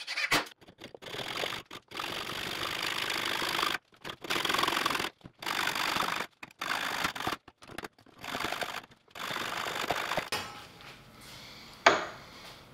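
Hacksaw cutting a black iron pipe, in stretches of quick back-and-forth strokes broken off abruptly several times. The sawing stops about ten seconds in, and a single sharp knock follows near the end.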